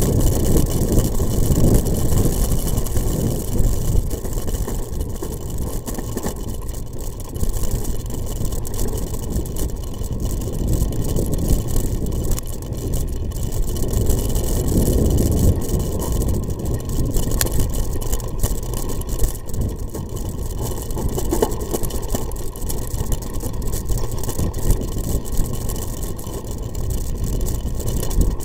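Off-road vehicle's engine running unsteadily as it rides a rough dirt trail, heard through a rumbling mix of wind and jolting on the vehicle-mounted camera.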